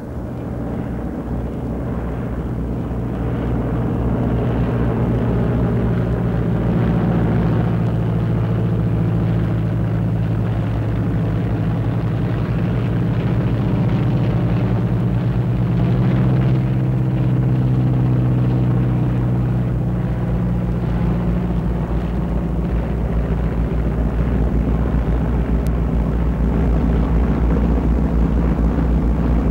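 Engines of a large formation of military aircraft flying past, a steady low drone that swells over the first few seconds and then holds.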